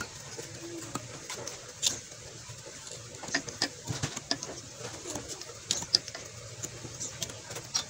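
Scattered light clicks and taps as cloth strips are worked over the nails of a wooden doormat loom, with birds chirping in the background.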